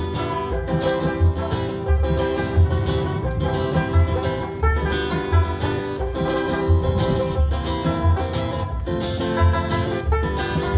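Instrumental break of a Jamaican mento tune: acoustic guitar and banjo strumming over a regular low bass line, with maracas shaking in time.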